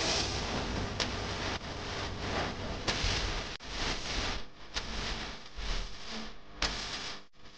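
A rushing, rustling noise with no music or voice, rising and falling in strength, with a few sharp clicks about a second in, near the three-second mark and again near the end.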